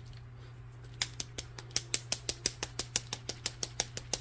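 Craft Smart paint pen being shaken, its mixing ball rattling inside in quick, even clicks, about six a second, starting about a second in.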